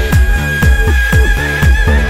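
Background electronic dance music with a steady kick-drum beat, a bass line and a long held high synth note.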